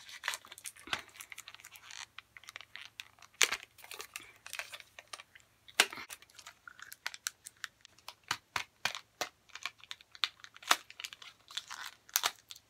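A small plastic candy wrapper crinkling and crackling in the hands as it is pulled and worked at to get it open, in many short, sharp bursts.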